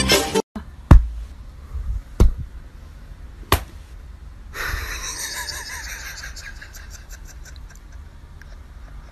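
Music cuts off about half a second in. Three sharp knocks follow, about a second and a quarter apart, the first the loudest. A low steady room noise is left after them.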